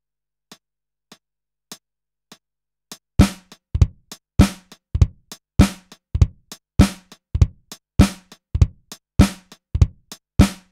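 Programmed drum beat playing back from sampled kit sounds at about 100 beats a minute. At first only quiet closed hi-hats tick on the offbeats. About three seconds in, loud kick and snare hits come in, and a steady hip-hop groove runs to the end.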